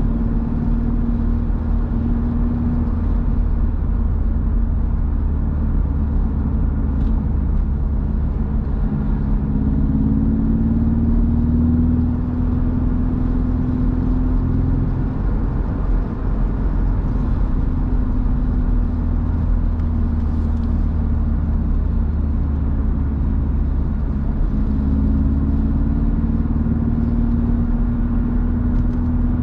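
A BMW roadster driving on the road: a steady engine drone over heavy road and wind rumble. The engine note rises slowly twice, about a third of the way in and again near the end.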